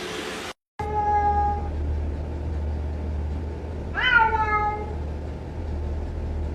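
Domestic cat meowing twice: a level, held meow about a second in, then one about four seconds in that starts high and falls away.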